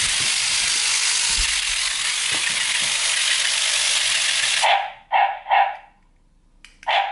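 A steady loud hiss that cuts off suddenly about two-thirds of the way through. Right after it, a WowWee CHiP robot dog gives three quick electronic barks from its speaker, and another starts just at the end.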